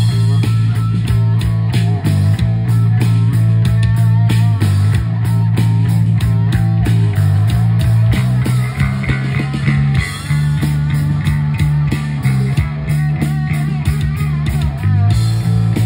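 Live rock trio playing: an electric lead guitar played with a slide, over bass and drums. Around the middle the guitar notes waver and glide up and down.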